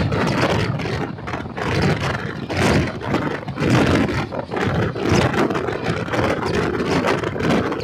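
Passenger train coaches' wheels running on the rails at speed, heard from an open coach doorway: a steady loud rumble with repeated clacks from the track.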